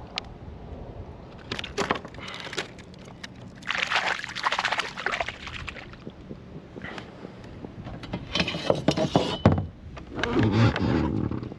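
Water sloshing and splashing around a kayak in several irregular bursts, mixed with a run of sharp knocks about eight to nine seconds in.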